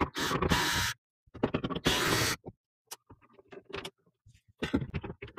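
Scraping and clicking of hands and a screwdriver on the plastic housing of an HP OfficeJet Pro 8125e printer while its side-panel screws are taken out. There are two noisy stretches of about a second each, scattered clicks, and more scraping near the end.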